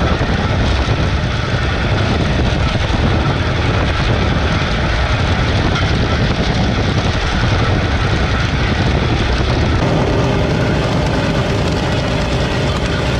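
Homemade motorized rail car running at speed on narrow-gauge track: loud, steady engine and running noise, with a more distinct engine tone coming through near the end.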